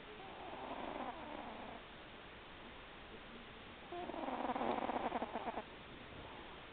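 Domestic cat snoring faintly: two breaths, the second, about four seconds in, louder and with a fine fluttering rattle.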